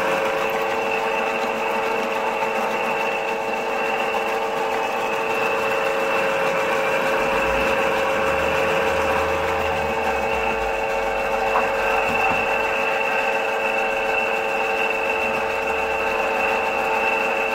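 Toyota 2GR-FE V6 engine running steadily with a rattle from its VVT-i camshaft phaser, the sign that the phaser is faulty.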